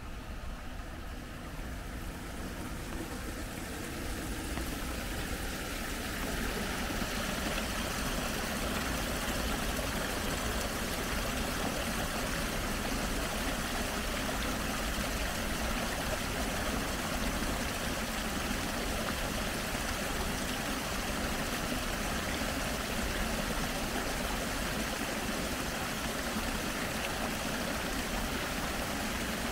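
Steady rush of running water, growing louder over the first several seconds and then holding even.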